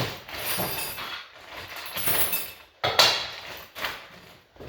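Rummaging in a wooden sewing machine table's drawers: rustling and irregular clattering as a bag of metal sewing machine attachments is pulled out, with a sharp knock about three seconds in.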